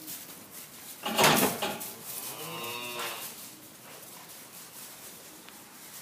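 A calf moos once, about two seconds in, a call of about a second whose pitch bends up and falls away. Just before it, about a second in, comes a loud, short rush of noise.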